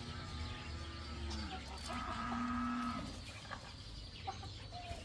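Chickens calling: a falling, drawn-out call, then a long held call about two seconds in.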